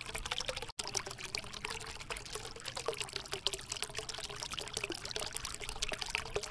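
Shallow water running and trickling over rocks, a steady splashing flow.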